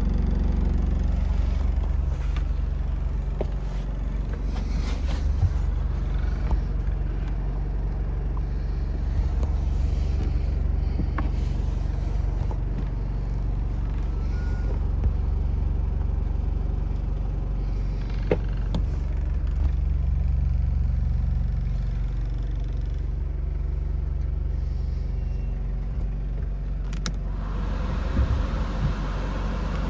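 Toyota Regius Ace's 1KZ-TE 3.0 L four-cylinder turbo diesel idling steadily, heard from inside the van's cabin, with a few light clicks. A little before the end, a rush of air from the rear ceiling air-conditioning vents starts up over the idle.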